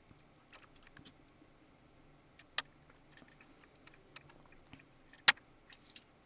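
Scattered small clicks and light clinks of tools and parts being handled while the Digidesign 003 console's faders are taken out, with a sharper click about two and a half seconds in and a louder one a little after five seconds.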